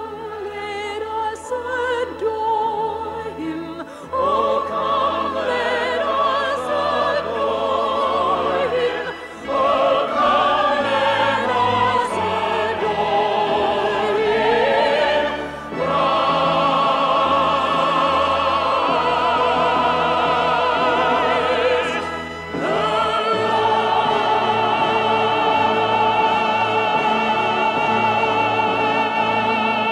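Operatic singing with wide vibrato over an orchestra, building to a long held final note in the last few seconds.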